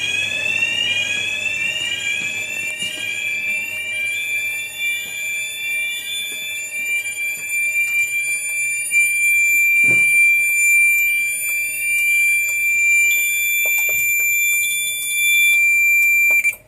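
Fire alarm sounding during a test. A rising sweep tone repeats over and over on top of a loud, steady high-pitched tone, and both cut off abruptly near the end. A single thump comes about ten seconds in.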